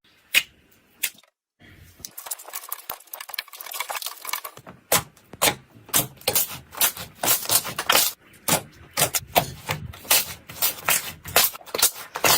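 Slime being squeezed and poked, with a few separate sticky clicks at first, then a quiet crackle, then rapid, irregular clicks and pops from about five seconds in.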